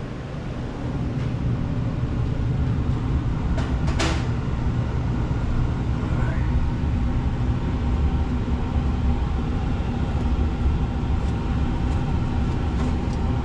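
Air conditioner's indoor air-handler blower running with a steady low hum, and a sharp click about four seconds in.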